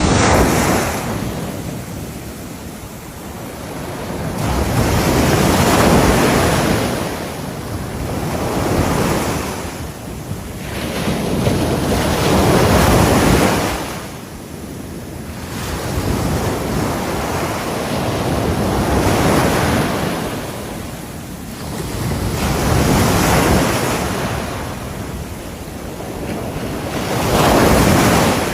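Ocean waves breaking on the shore. The surf swells up and falls away every few seconds.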